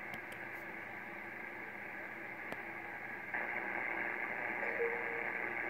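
Icom IC-7410 HF transceiver receiving on 20-metre USB: a steady hiss of band noise with one faint atmospheric tick. About three seconds in, louder power-line noise from an arcing power pole comes up over it, to about S5.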